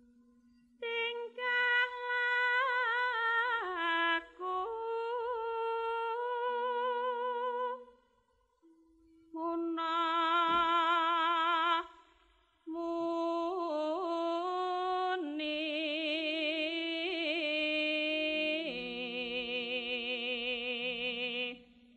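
A woman singing a slow Javanese gendhing vocal line in sindhen style: long held notes with wide vibrato and sliding ornaments, in phrases broken by two short pauses, over a lower held tone.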